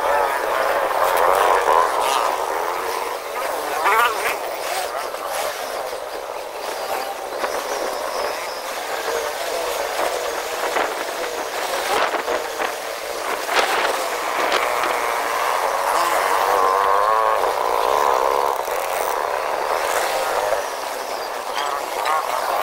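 Small motorcycle engine running while riding, its pitch wavering with the throttle, mixed with wind noise and a few knocks from road bumps.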